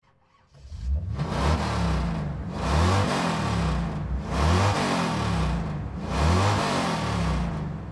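Car engine revving in about four swells, its pitch climbing and dropping with each one, then cutting off.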